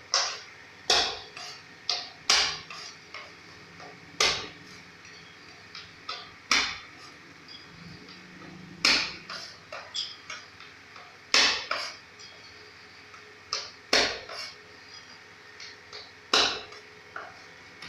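Kitchen knife chopping on a wooden cutting board: a sharp knock of the blade on the wood about every two seconds, with lighter taps in between.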